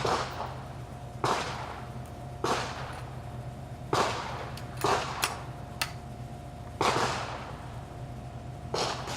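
Gunshots at a shooting range: about seven sharp reports, each with a short echoing tail, coming irregularly a second or more apart, over a steady background hum.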